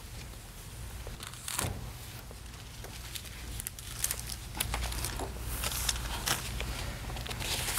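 Paper receipts rustling and crinkling as they are handed over and unfolded, in scattered short crackles.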